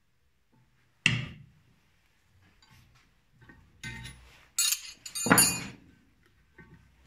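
Steel wrench and nuts clinking and knocking against a cylinder head: a sharp ringing clink about a second in, then a run of clinks and knocks between about four and six seconds in.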